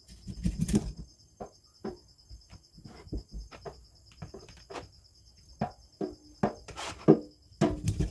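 Fish scaler scraping scales off a barracuda in a stainless steel sink: a quick, irregular series of short scrapes and knocks. Crickets chirp steadily in the background.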